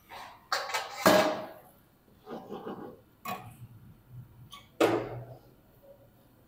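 A few short scraping and clattering bursts from a spatula working through onions frying in oil in a cooking pot, with quiet gaps between them.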